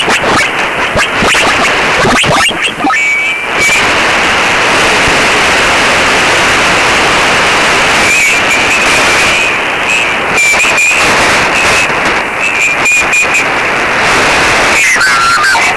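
Loud shortwave static from an ANAN-10 (Hermes) software-defined radio being tuned across the 75-metre amateur band: a steady hiss with crackles and a few short whistles.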